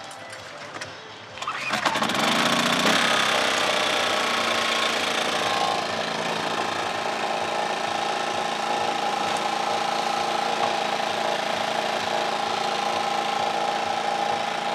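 Small portable inverter generator starting: it catches about a second and a half in, runs fast and loud for a few seconds, then settles about six seconds in to a steady run.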